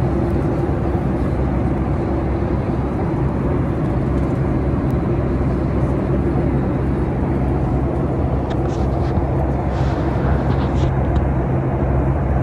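Steady drone of a Boeing 737 MAX 8's cabin with its engines running: an even rush of noise carrying two held low hums. A few faint rustles come about two-thirds of the way through, as the seat-pocket contents are handled.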